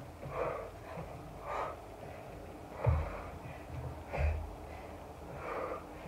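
A woman breathing hard through kettlebell cleans and rear lunges, forcing out about five short huffs roughly a second apart. Two dull thuds of feet landing on an exercise mat come about three and four seconds in; the first is the loudest sound.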